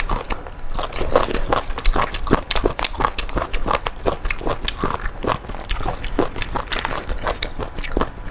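Close-miked chewing of crunchy hot and sour kelp knots: a continuous run of quick crisp crunches and mouth clicks.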